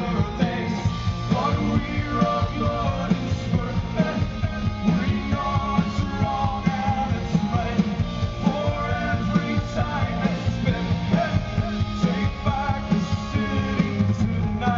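Rock band playing live at full volume, with a steady beat and a voice singing over the band, heard as it reaches a listener in the audience.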